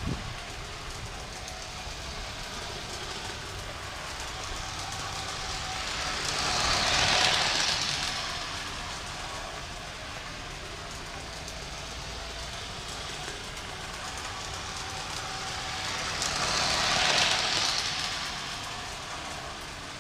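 Gauge 1 live-steam model locomotive running laps on a garden railway, its running noise swelling up and fading away twice as it passes close by, about ten seconds apart.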